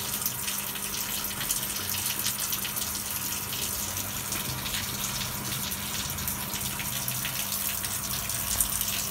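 Water pouring and splashing steadily into a concrete fish pond as it is being refilled after cleaning, with a steady low hum underneath.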